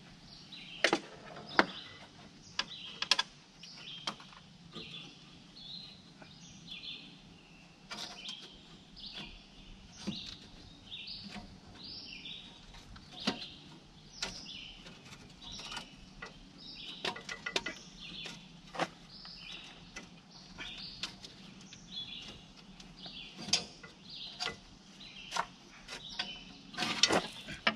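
Scattered sharp metallic clicks and knocks as steel transmission cooler lines are worked loose and pulled out from under the front of a truck, with a louder clatter near the end. Birds chirp steadily throughout.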